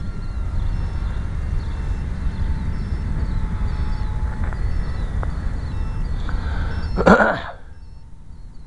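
Wind buffeting the microphone of a hat-mounted camera, a steady low rumble, with a short loud rustling crackle about seven seconds in, after which it is much quieter.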